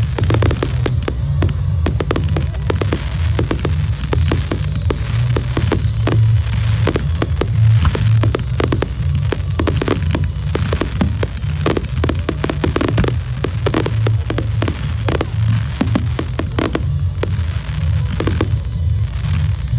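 Fireworks display: a rapid, irregular barrage of bangs and crackling from aerial shells bursting several times a second.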